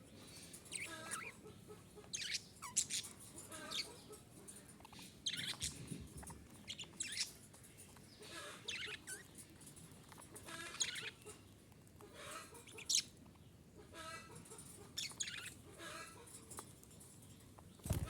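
Budgerigars chirping and warbling in short bursts of high calls, a burst every second or so.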